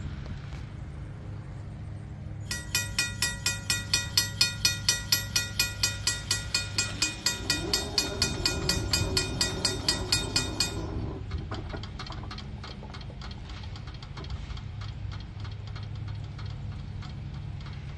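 Safetran mechanical crossing bell starts about two and a half seconds in, ringing about three strikes a second with a flat tone, because its gong was never rotated after repair, and stops after about eight seconds as the gates come down. Under it, a steady low diesel locomotive engine rumble, with faint fast ticking once the bell stops.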